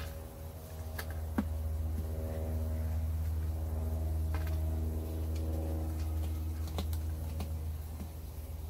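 A steady low hum, with a few faint, sharp clicks over it.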